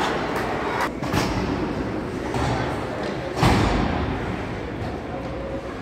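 Ice hockey game in an arena: a steady wash of rink noise, with a sharp knock about a second in and a louder thud about three and a half seconds in that echoes through the rink.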